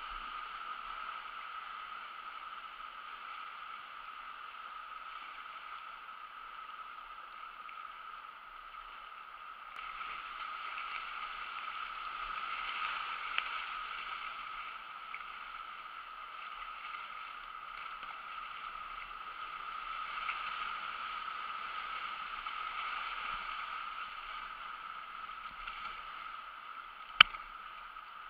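Whitewater of river rapids rushing around a kayak, a steady hiss that grows a little louder about ten seconds in. A single sharp click sounds about a second before the end.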